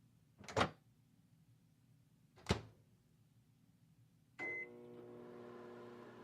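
Two knocks about two seconds apart, then a short beep and a microwave oven starting to run with a steady hum.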